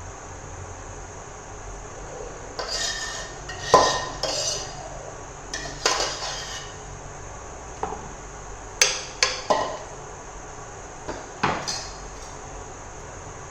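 A metal spoon knocking and scraping against a cooking pot as egg gravy is spooned and spread over a layer of rice: scattered sharp clinks, three in quick succession just past the middle.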